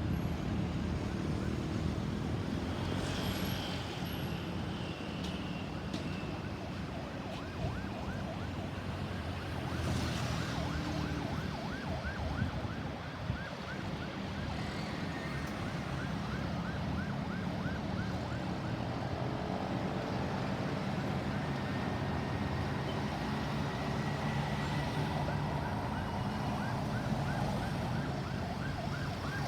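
Ambulance siren in a fast yelp, a quick up-and-down sweep repeating about three times a second, over steady traffic noise. The siren grows clearer about halfway through.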